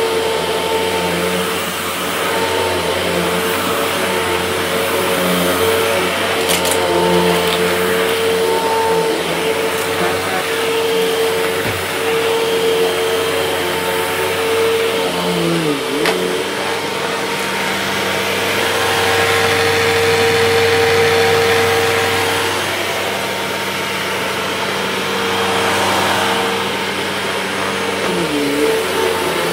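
Hoover upright vacuum cleaner running steadily as it is pushed over a rug. Twice, about two thirds of the way through and again near the end, its motor hum drops briefly in pitch and comes back up.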